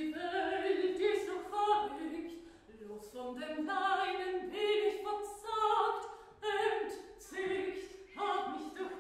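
A woman singing solo and unaccompanied, in short phrases of held notes with brief pauses for breath between them.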